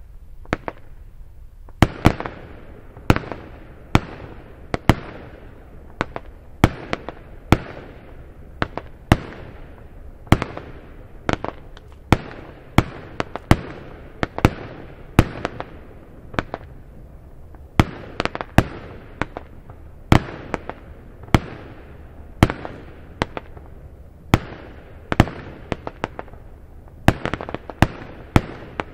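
Firework battery (cake) firing shot after shot: a steady string of sharp bangs, about one or two a second, each trailing off in echo, as the shots launch and burst overhead.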